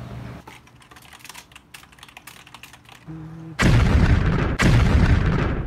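Computer keyboard typing: quick, light key clicks for the first half. A short steady tone follows, then two loud, harsh blasts about a second each, like dramatic sound-effect hits.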